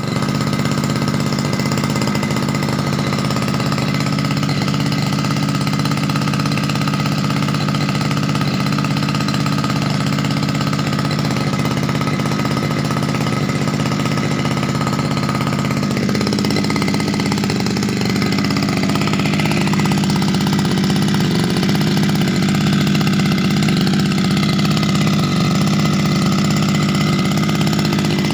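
Yamamaxpro two-stroke brush cutter engine running steadily on test, its sound shifting slightly about 16 seconds in.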